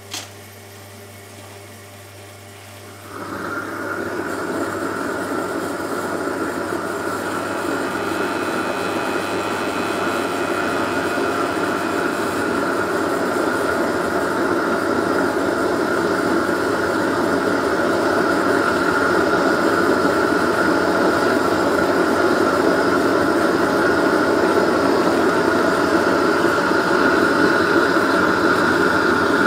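Gas blowtorch lit about three seconds in and burning with a steady rushing roar and a faint whistle, growing slowly louder, played over the bowl on the spinning wheel to firm the clay. A low steady hum runs underneath, and a short click comes right at the start.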